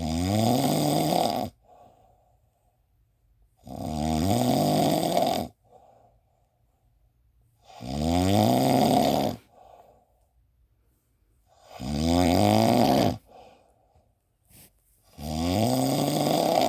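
Snoring: five long snores about four seconds apart, each rising in pitch, with a short, much softer breath after each.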